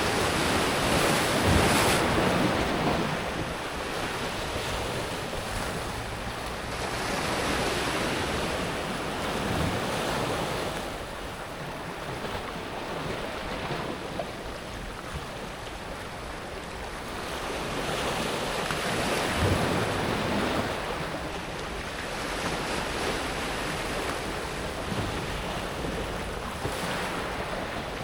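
Small sea waves breaking and washing up a pebble beach, the water hissing and rattling over the smooth stones. The sound swells and ebbs with each wave, about four stronger surges, the first one the loudest.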